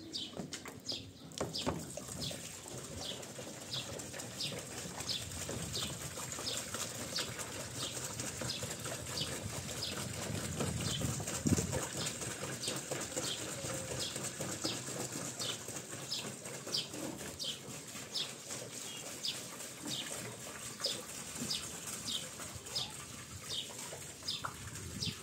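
Water poured from a plastic drum into a top-loading washing machine's tub: a steady rushing splash, heaviest about halfway through. A bird chirps over it, a short high note about twice a second.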